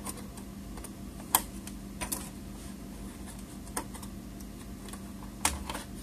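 A handful of light, sharp clicks from fingers working the spring-loaded retaining clips of a laptop-style memory slot, pushing them aside to release the RAM stick; the sharpest click comes about a second and a half in.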